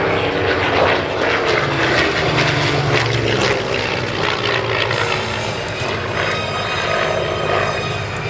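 Hawker Hurricane's Rolls-Royce Merlin V12 engine droning overhead through a banking display pass. Its pitch falls over the first few seconds.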